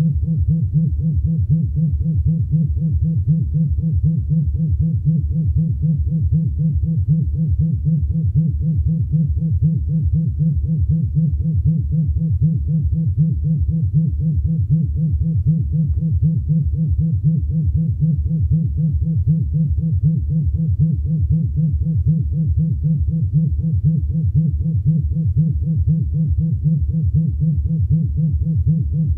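Vibrator buzz in a steady pulsing pattern: a low hum that throbs evenly, several pulses a second, without change.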